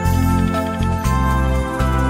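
Soft instrumental background music: sustained notes over a low bass line that changes note about every half second.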